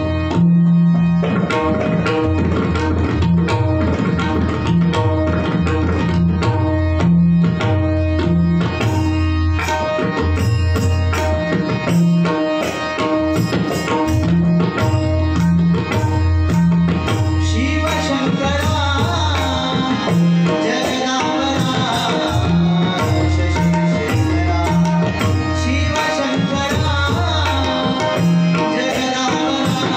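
Tabla and pakhawaj playing a fast rhythmic instrumental passage together, with steady held notes underneath. About halfway through, a busier, higher layer joins the drumming.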